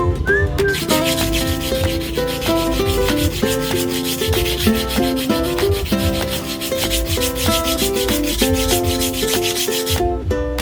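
Kitchen knife being sharpened: the blade scrapes in rapid, repeated strokes, starting about half a second in and stopping shortly before the end, over background ukulele-style music.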